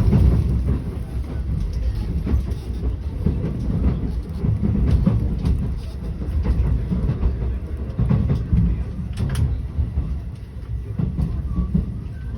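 Marine Liner electric train running on the track, heard from inside a passenger car: a steady low rumble with short rail clicks now and then.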